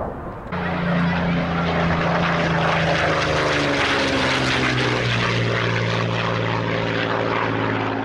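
Propeller aircraft engine running steadily, starting suddenly about half a second in; its pitch drops around five seconds in.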